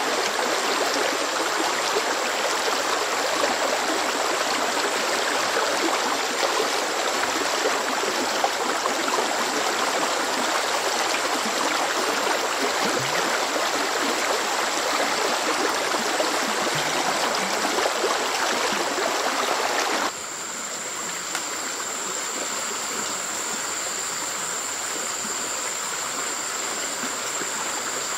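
Water running steadily in a stream. About twenty seconds in it cuts abruptly to a quieter flow, with a thin steady high tone above it.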